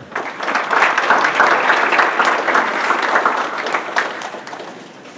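Audience applauding a speaker's welcome, many hands clapping at once, then dying away over the last second or so.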